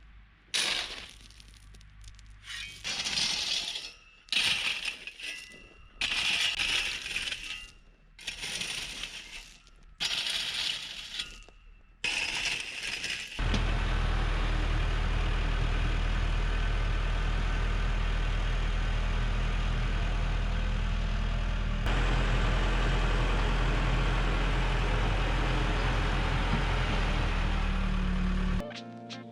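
Gravel crunching and scraping in about seven separate strokes, a second or two each. About halfway through, an engine starts running steadily at an even level.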